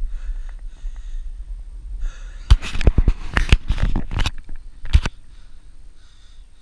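A hand knocking and rubbing against a body-worn action camera, a cluster of sharp knocks and scrapes from about two and a half to five seconds in, over a steady low wind rumble on the microphone.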